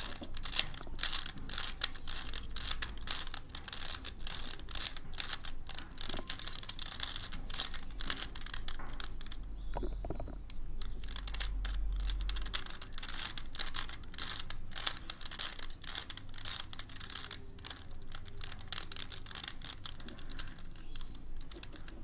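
Plastic 3x3 Rubik's cube turned rapidly by hand, its layers clicking and clacking in quick, irregular runs of turns.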